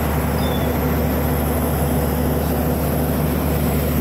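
Diesel engine of a horizontal directional drilling rig running steadily with an even, low hum.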